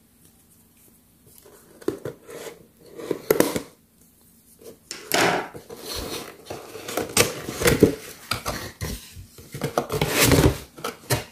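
Cardboard box being handled and opened by hand: scattered scrapes, rubs and light knocks of cardboard, starting about two seconds in.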